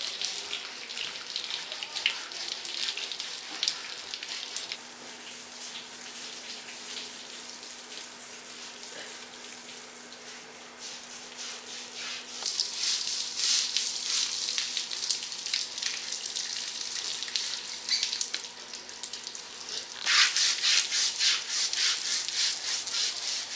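Water from a hose splashing over an Asian elephant's hide as it is scrubbed by hand with a rectangular scrubbing block. From about twenty seconds in, brisk rhythmic scrubbing strokes, about three a second, are loudest.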